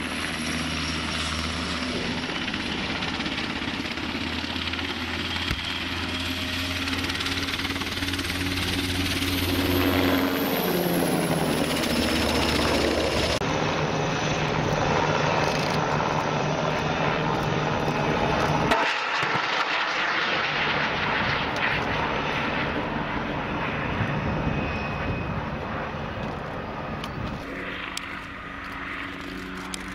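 Heavy military engines running steadily with a low hum. The sound changes abruptly a little before the middle and again about two-thirds through.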